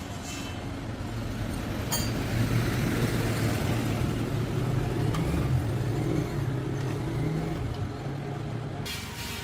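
A motor or engine running with a low, wavering hum, loudest midway through, that cuts off suddenly near the end.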